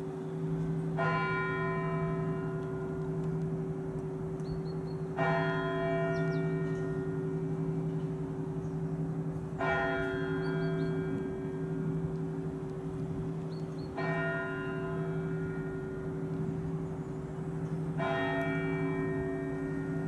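A large church bell of the Novospassky Monastery bell tower struck slowly, five single strokes about four seconds apart. Each stroke rings on into the next with a lingering low hum.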